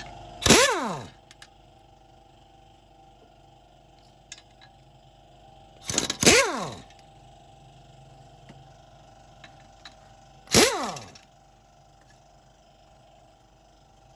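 Pneumatic impact wrench undoing clutch pressure plate bolts: three short bursts about five seconds apart, each ending in a falling whine as the tool spins down. A faint steady hum runs underneath.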